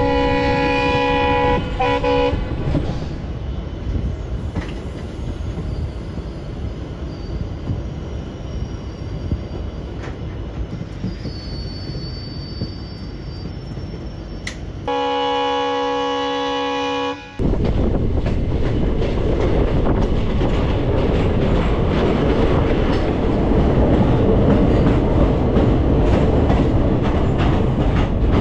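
Diesel locomotive horn sounding for about two seconds, then the steady running noise of the coaches on the track. The horn sounds again for about two seconds halfway through, and the wheel-and-rail running noise is louder for the last ten seconds, heard at an open coach door.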